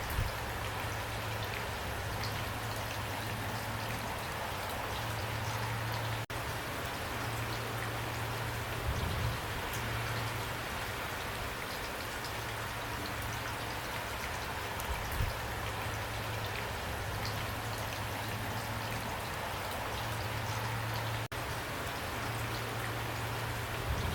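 Heavy rain pouring down steadily, with a couple of brief low thumps about 9 and 15 seconds in.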